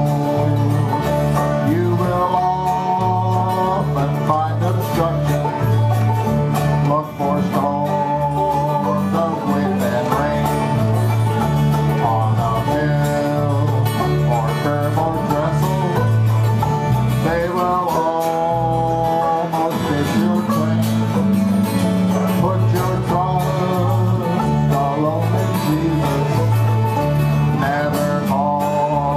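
Old-time string band playing a country tune: strummed acoustic guitar and banjo over an electric bass guitar stepping between notes about twice a second.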